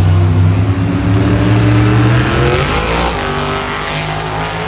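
Monster truck's supercharged V8 engine revving hard, its pitch climbing about three seconds in and then falling back.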